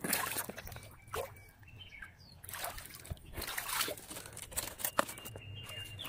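Shallow creek water splashing and sloshing in several short bursts as a hand reaches in among the stones and feet wade at the water's edge.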